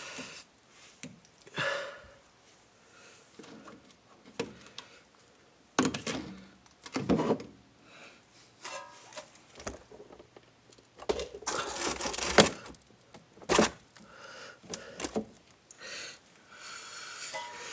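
Irregular knocks, clicks and short scrapes of metal brake parts and tools being handled while a greased caliper slide pin is worked into its hole, the loudest knocks a little after halfway.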